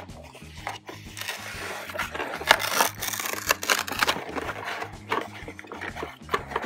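Cardboard toy box being torn open along its perforated edge and a plastic toy truck pulled out of it: irregular tearing, scraping and knocking.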